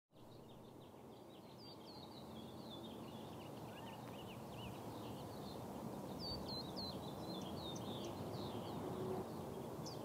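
Outdoor ambience fading in: small birds chirping with many quick, short calls over a steady low background noise.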